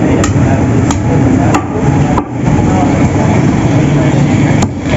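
Butcher's meat cleaver chopping meat on a wooden log block: a series of sharp chops, roughly one every half second to second, with a longer gap in the middle. A steady background din runs underneath.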